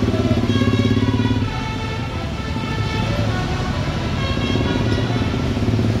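Bus telolet horn of the basuri type sounding a run of held musical notes, with a short lull about a second and a half in before the notes resume. Under it, a heavy engine runs steadily.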